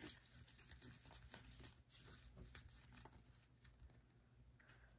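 Faint rustling and small clicks of a stack of paper-stock football trading cards being shuffled from hand to hand, dying down near the end.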